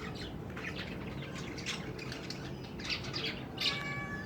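Small pet bird chirping: a run of short, high chirps, with a louder, longer call near the end.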